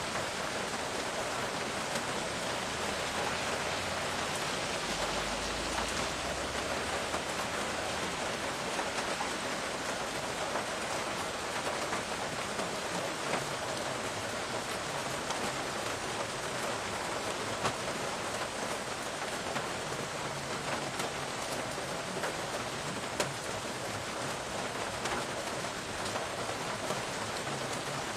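Steady rain falling, an even hiss with scattered sharper drops ticking nearby. A brief low rumble sits underneath about five seconds in.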